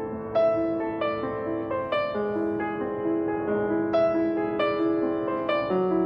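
Background music: a slow piano melody over held chords, notes struck about once or twice a second and left to ring.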